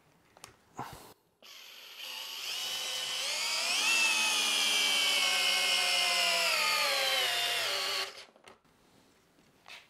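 Hilti SFE 2-A12 cordless drill driver in first gear driving a lag screw into a wooden beam. The motor whine climbs as it spins up, then sags slowly in pitch as the screw bites deeper under load, and stops about eight seconds in. The screw goes in without difficulty.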